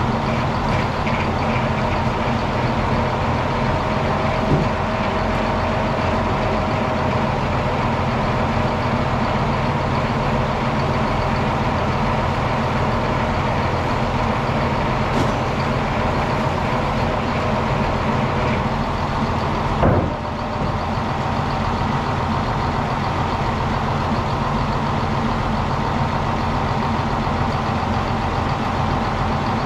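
Circular sawmill running steadily, with the engine humming and steady whining tones. There is a sharp knock about 20 seconds in, and a smaller one earlier.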